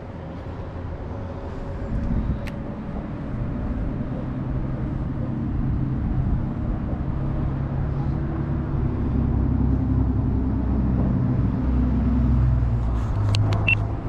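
Road traffic crossing a concrete road bridge: vehicle engines and tyres making a low, steady rumble that builds from about two seconds in and stays loud through the second half. A few sharp clicks come near the end.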